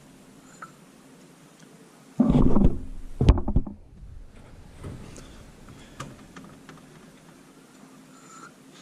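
Handling noise as heavy supercharger parts are moved: a loud rough scrape or shuffle about two seconds in, then a couple of sharp knocks, followed by a few faint clicks.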